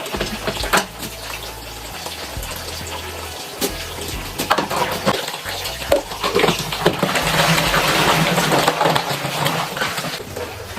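Tap water running into a sink while a dirty washing-machine part is rinsed and handled, with scattered knocks and clatter. The water gets louder for a few seconds past the middle.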